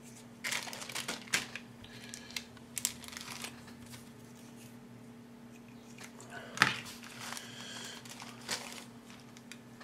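Clear plastic bag crinkling in short bursts of rustles as a grey plastic model-kit sprue is taken out of it, with the sharpest crackle a little past halfway.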